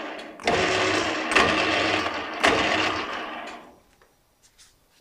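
CTC280 bench lathe running under power with a steady hum and gear whine from its drive and turning leadscrew. It starts up about half a second in, gives two sharp clicks as it runs, then winds down and stops shortly after three and a half seconds in.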